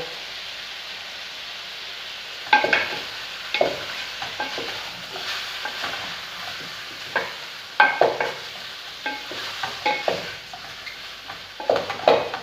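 Chicken drumsticks frying in butter in a pan with a steady sizzle, stirred with a utensil that clinks and scrapes against the pan several times.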